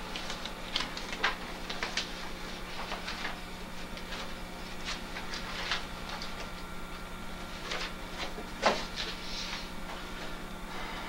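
Papers being handled and leafed through at a table, with scattered rustles and small clicks and one sharper knock near the end, over a steady low electrical hum.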